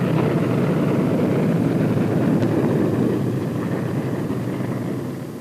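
Airplane engines running loud and steady as the plane comes in to land, fading near the end.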